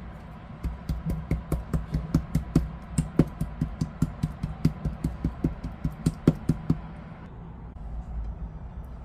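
Rapid, even knocking, about five strokes a second for some six seconds before it stops, over a steady low hum.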